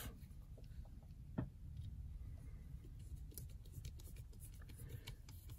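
Faint clicks and light scraping of a small screwdriver bit turning the pocket-clip screws on a Zero Tolerance 0393 folding knife, with one sharper click about a second and a half in.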